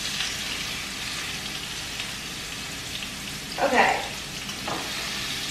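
Raw chicken pieces sizzling steadily in hot olive oil in a frying pan. The sizzle as the meat goes in is the sign that the pan is hot enough.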